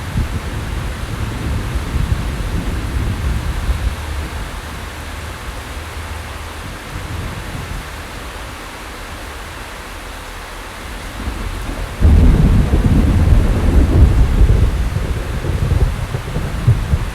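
Thunderstorm: steady rain hiss with rolling thunder. The low rumble dies down in the middle, then a loud thunderclap breaks in sharply about twelve seconds in and rumbles on.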